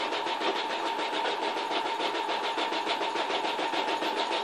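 Electric sewing machine running steadily while sewing a zigzag stitch: rapid, even needle strokes over a steady motor whine, cutting off at the very end.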